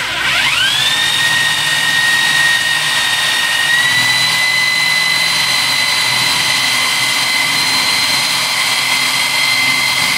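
Corded SDS Plus rotary hammer, fitted with a chuck adapter and a standard drill chuck, drilling a twist bit into wood. The motor winds up at the start, then runs with a steady high whine that steps slightly higher about four seconds in.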